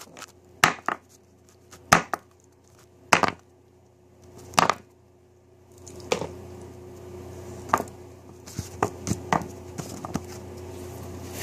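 Cast lead bullets being pushed out of a hardened cake of bullet lube and set down on a tabletop: about ten sharp, irregular knocks and clicks.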